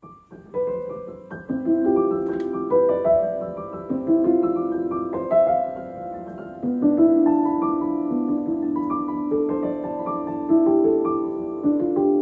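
Background music: soft piano playing a slow melody over held chords.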